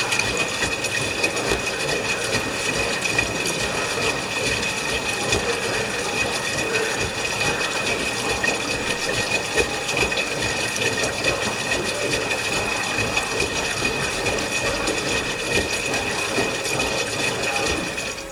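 LG washing machine running on its rinse-and-spin cycle: a steady mechanical noise with a constant high whine.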